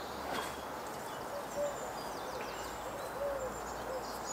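A pigeon cooing in a series of short, low coos, with a single snip of bonsai pruning scissors shortly after the start.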